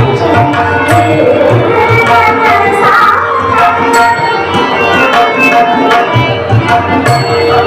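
Classical-style Marathi bhajan music: tabla plays a steady rhythm under held instrument notes, and a voice sings a curving melodic phrase about two to three seconds in.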